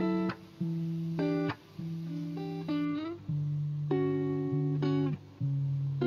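Background music: a plucked guitar playing a slow, even pattern of notes over held bass notes, a new group of notes about once a second.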